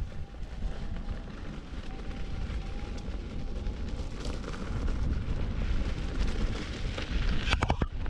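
Wind rushing and buffeting on the action camera's microphone while riding an electric unicycle over a sandy trail, with the faint whine of its hub motor early on. A quick run of clicks and knocks comes near the end.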